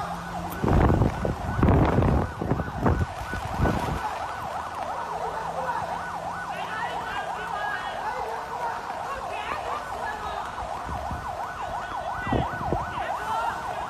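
Emergency-vehicle siren sounding in fast, repeated rising-and-falling sweeps. Several loud rushing bursts of noise come in the first few seconds, with a shorter one near the end.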